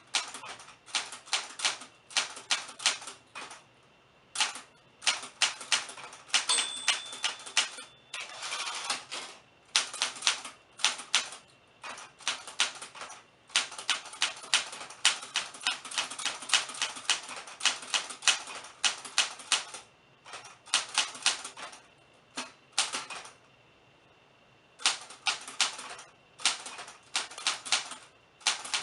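Typewriter being typed on: keys striking in quick runs of several strokes a second, with short pauses about four seconds in and again near the end.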